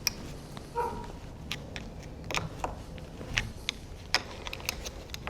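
Snap ring being worked off a Denso A/C compressor clutch: a dozen or so irregular sharp metal clicks and taps as the tool grips and levers the ring, with a short ringing note about a second in.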